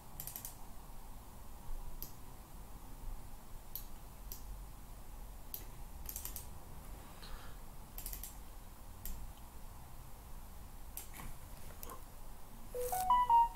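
Scattered, irregular clicks of a computer mouse and keyboard, roughly one every second, over a faint steady background hum.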